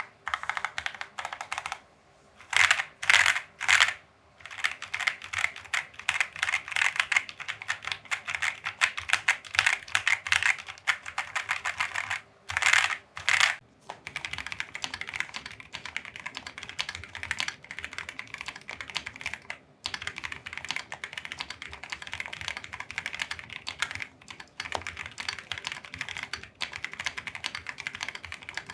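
Continuous fast typing on a Keychron Q3 mechanical keyboard, a dense stream of key clacks, with a few short, louder runs of rapid strokes about two and a half seconds in and again near the middle.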